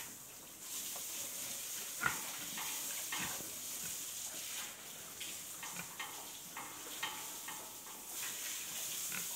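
A pig eating from a trough: irregular wet chomping and crunching clicks over a steady hiss.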